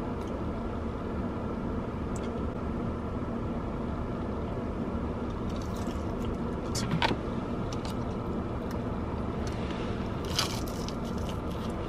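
Biting and chewing crispy fried chicken tenders: a crunchy bite about seven seconds in and more crunching near the end. A steady low car-cabin hum runs underneath.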